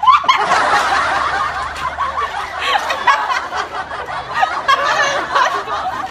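Several young women laughing hard together, their laughs overlapping in a loud, continuous fit of giggling.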